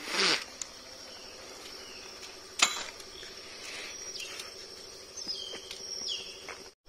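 Steady high-pitched drone of insects, with a sharp click a little over two and a half seconds in and two short falling chirps near the end.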